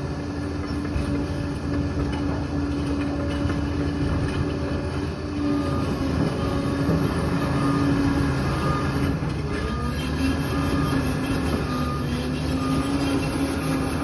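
Liebherr 746 crawler dozer working, its diesel engine running steadily with the clatter of its tracks. The engine note dips briefly and recovers about nine or ten seconds in. From about five seconds in, a row of short, evenly spaced beeps runs alongside.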